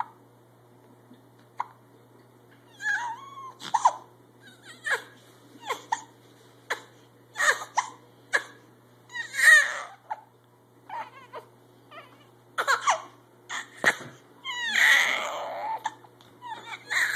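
A baby hiccuping, beginning about three seconds in and repeating roughly once a second, each hiccup short and sharp with a little voice in it. A little after two-thirds of the way through, it gives a longer cry of about a second and a half.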